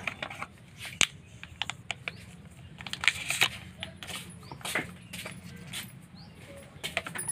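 Gloved hands handling a cardboard phone box and pulling out a coiled charging cable: scattered light clicks and taps with a few short rustles.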